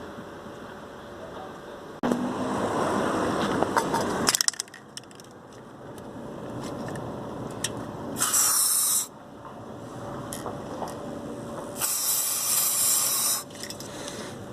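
Aerosol lubricant hissing from a spray can in two bursts, about a second and a second and a half long, applied to the squeaking suspension brackets of a VAZ 21099. Before the sprays there is a louder rough scraping noise lasting about two seconds.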